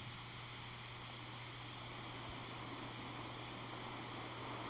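Steady hiss and static with a constant low hum underneath, with nothing else happening over it.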